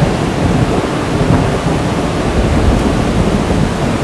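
A loud, steady rushing noise with a flickering low rumble.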